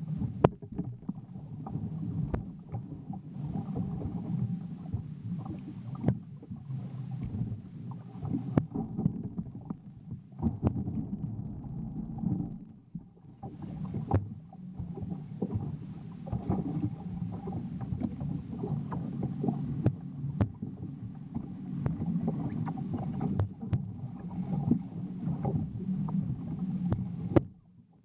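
Jet ski engine running steadily, with frequent short knocks and thumps over it as the craft moves on rough water.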